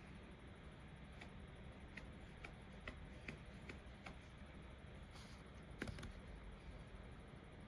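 Quiet computer work: faint, scattered clicks of keys being pressed, about two a second for a few seconds, then a soft rustle and a sharper double click near the end, over low room tone.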